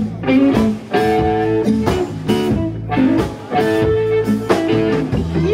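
Live blues band playing an instrumental stretch between sung lines, led by guitar with bass guitar underneath.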